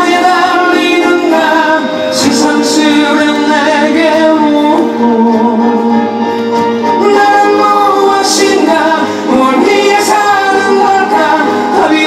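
A man singing a song live into a microphone while playing an acoustic guitar, amplified through a PA.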